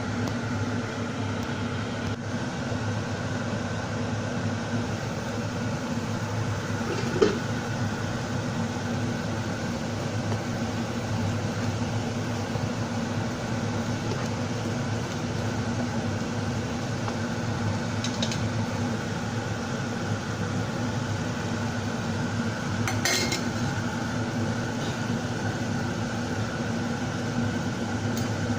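Steady kitchen hum with a few sharp clinks of kitchenware, the loudest about seven seconds in and two fainter ones later.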